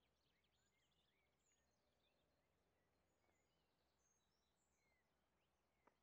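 Near silence: faint birdsong, scattered short chirps and whistles, over a low steady hum.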